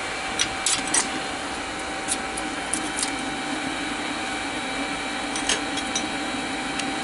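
Electric chimney blower, a 12-volt car heater motor with a fan, running steadily to draw up the newly lit charcoal fire in the firebox. A few light clinks of a metal shovel and lumps of charcoal sound over it, most of them in the first three seconds.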